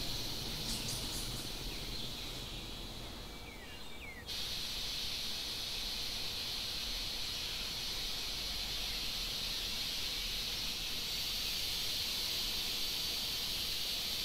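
Outdoor ambience dominated by a steady, high-pitched insect drone over a soft background hiss. The drone thins out for a moment and comes back abruptly about four seconds in.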